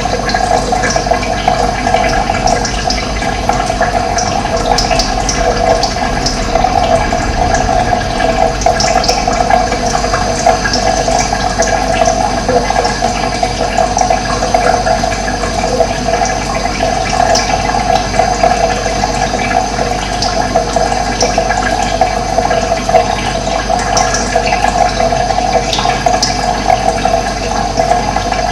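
Steady rushing of running water, continuous and even throughout.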